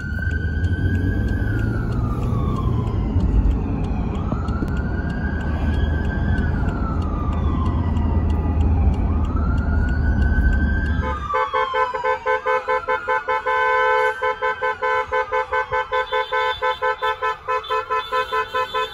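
Police siren wailing in a slow rise and fall, over the rumble of a moving car until about eleven seconds in. From then on a horn also sounds in rapid pulses, about four a second, alongside the wail.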